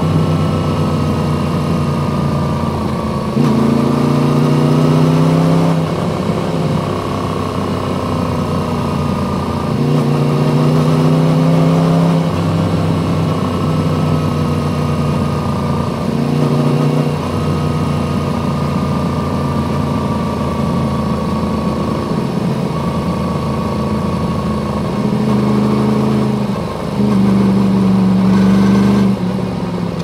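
Yamaha MT-10's crossplane inline-four running through an Akrapovic exhaust. The engine note climbs several times as the throttle opens and sinks slowly in between as it eases off, with a short dip in level near the end.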